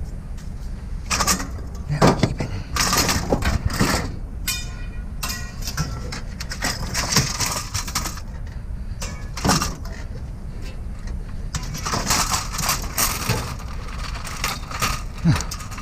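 Irregular metal clanks, knocks and rattles of scrap metal being handled, with a short rising whine about four and a half seconds in.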